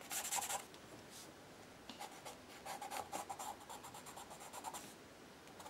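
A soft black charcoal pencil scratching across a painted page in several bursts of quick, short shading strokes.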